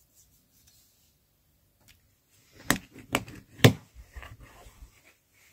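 Three sharp knocks about half a second apart, then lighter clicks and taps.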